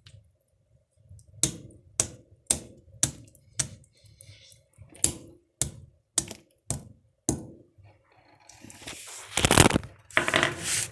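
Hammer striking dried carrot pieces about eleven times in a steady run of roughly two blows a second, then a louder stretch of scraping and rustling near the end.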